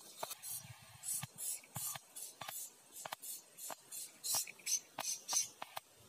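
Blue-crowned hanging parrots calling: a quick, irregular run of short, thin, high-pitched chirps, a couple or more each second.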